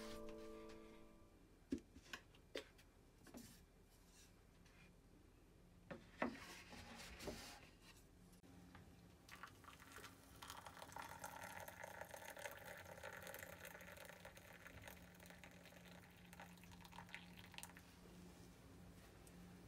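Hot water poured from a kettle into a ceramic mug of instant soup, a faint filling sound lasting about seven seconds in the second half. Before it come a few light clicks and knocks of dishes being handled.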